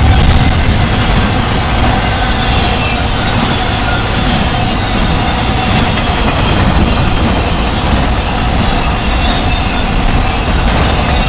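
Cars of a passing CSX intermodal freight train, trailers on flatcars and double-stack containers, rolling by at speed: a loud, steady noise of steel wheels running on the rails.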